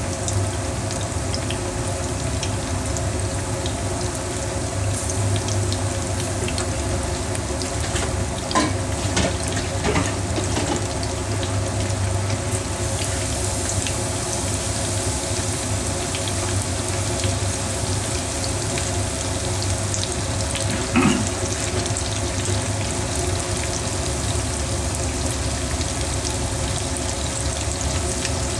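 Floured meat pieces deep-frying in hot oil in a frying pan: a steady bubbling sizzle over a low hum. Long cooking chopsticks stir the pieces, with a few sharp clicks against the pan, the loudest about 21 seconds in.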